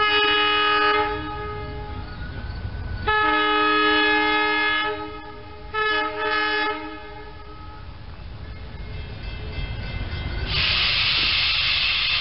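SEPTA Silverliner electric multiple-unit train's air horn sounding a chord: a blast of about a second, a longer one of about two seconds, then two short blasts close together. Near the end a loud hiss rises as the train draws near, then cuts off.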